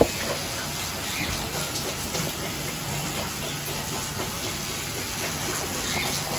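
Bathroom faucet running a steady stream of water into the sink basin, a constant hiss. A short sharp knock right at the start.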